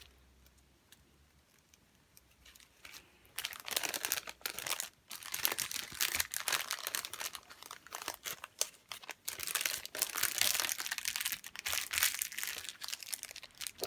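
Crinkly packaging being handled and unwrapped, starting about three seconds in, with dense irregular crinkling and rustling that comes in quick handfuls.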